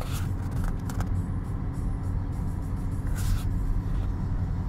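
Car cabin noise while driving: a steady low rumble of engine and tyres on the road, with a few brief hissy noises.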